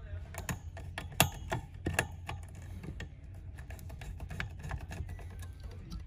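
Irregular light clicks and taps of a screwdriver knocking against the plastic blades and frame of a CPU cooler fan, the sharpest about a second in, over a steady low hum.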